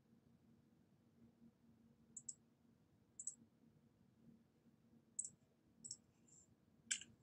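Faint, scattered clicking at a computer: about seven short, sharp clicks over near-silent room tone, the loudest near the end.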